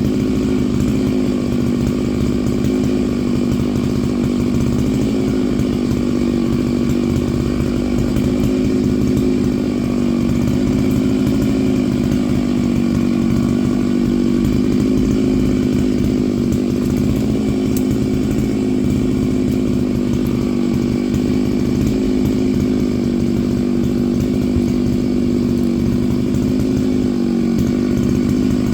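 Stihl MS 660 two-stroke chainsaw running steadily at high speed as it cuts through pine logs, the engine pitch dipping slightly under load near the end.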